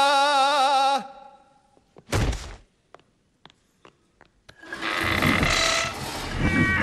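A sung note held with vibrato dies away about a second in, then a single heavy thud. Near the end comes a long, grinding scrape with squeaky overtones as a fallen stone column is shoved across a wooden stage floor.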